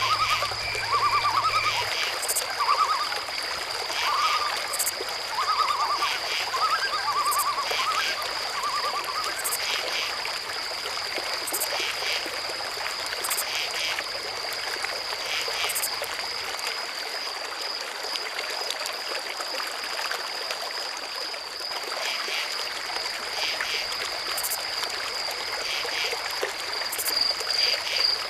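Night chorus of insects trilling steadily at a high pitch, with short repeated frog calls during the first ten seconds or so and faint ticks about every one and a half seconds. An even trickle of water runs beneath.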